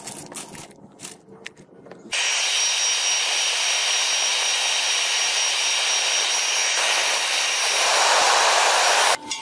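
Electric air blower running, forcing a steady rush of air into a brick-lined charcoal forge to bring the coals to flame. It switches on abruptly about two seconds in, with a faint high whine over the rushing air, grows a little louder near the end, and cuts off suddenly.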